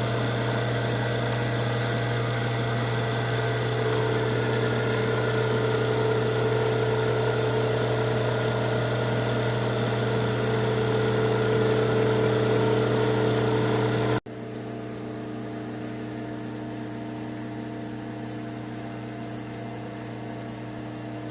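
Electric wire stripper's motor running with a steady hum; about two-thirds of the way through it breaks off for an instant and carries on quieter.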